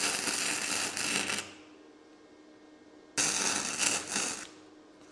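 Flux-core wire welder arc crackling in two short bursts, tacks being stacked to fill a blown-out hole in thin-wall tube. The first burst stops about a second and a half in; the second starts about three seconds in and lasts just over a second.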